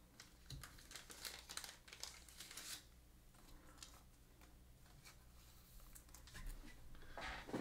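Faint crinkling of a thin plastic card sleeve as a trading card is handled and slid into it, in short scattered rustles.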